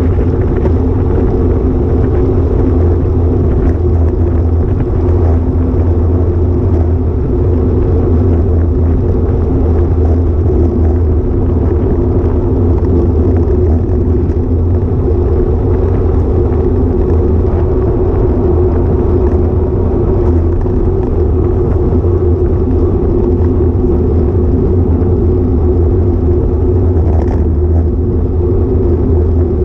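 Steady rumble of wind buffeting a bike-mounted action camera's microphone, with road noise from a road bike riding on tarmac. A constant low hum runs under it.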